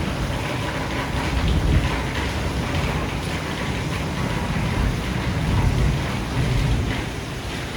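Heavy rain pouring steadily during a thunderstorm, with low rolling rumbles of thunder swelling and fading through it.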